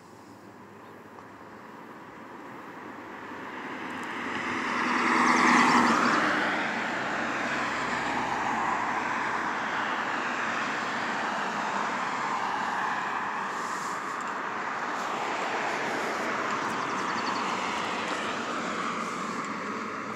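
Aircraft flying over: engine noise building to a peak about five and a half seconds in, then carrying on steadily with a slowly sweeping pitch.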